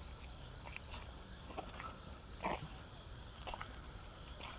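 Faint short croaking calls, going 'kro kro', from an unseen animal that the listeners take for an owl, the clearest about two and a half seconds in, over a steady high insect drone.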